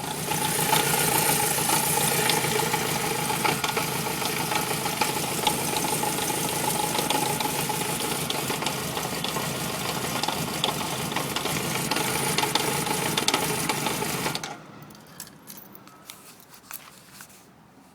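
Honda CB750A's air-cooled inline-four engine running with the choke off, a rattling knock in its beat, which the owner puts down to carburettors out of sync. It shuts off suddenly about fourteen seconds in, leaving only faint scattered clicks.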